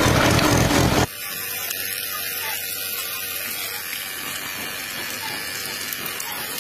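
A miniature model water pump's small motor runs loud, with water spraying, and cuts off abruptly about a second in. After that, water pours steadily from the pump's hose into a shallow muddy puddle with a light splashing trickle.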